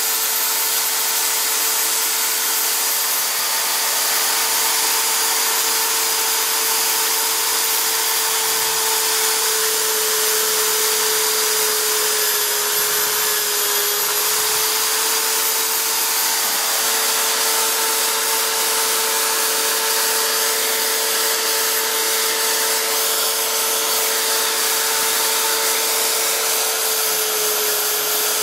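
Corded electric drill, clamped horizontally as a mini lathe, running steadily while its bit drills into a wood block fed in on a mitre slide. The motor's hum sags slightly in pitch about halfway through and again near the end.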